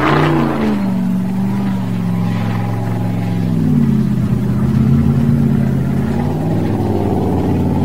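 Formula offroad buggy's engine running hard under load on a steep gravel climb. Its revs sag and rise several times, with a brief burst of noise at the start.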